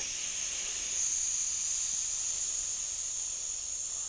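Steady hiss from a Suter waterproofness tester as its valve is taken off and the pressure is let out, slowly fading.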